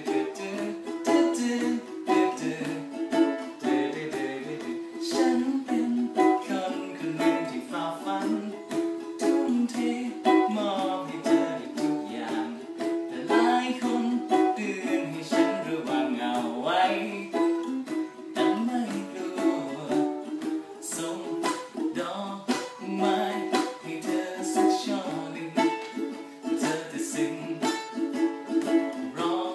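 Ukulele strummed in a steady rhythm, with a man's voice singing along over the chords.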